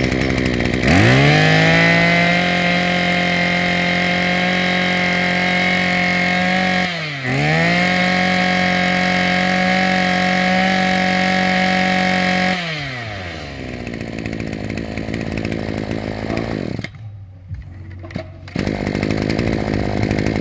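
Maruyama 26cc two-stroke brush-cutter engine revved from idle to full throttle and held there, with a brief dip about seven seconds in. It then drops back to idle and cuts out near the end.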